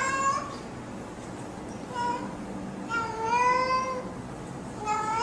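Calico cat meowing several times: a short meow about two seconds in, a longer drawn-out meow around three seconds, and another rising meow near the end.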